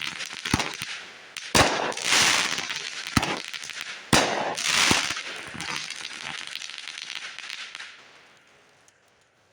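Consumer fireworks going off: four sharp bangs, two of them followed by a long hissing spray of sparks that dies away about eight seconds in.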